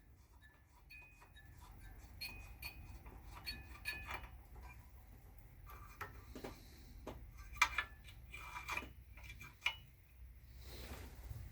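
Scattered faint clicks and light metallic clinks of small parts and tools being handled, with a few sharper knocks in the second half.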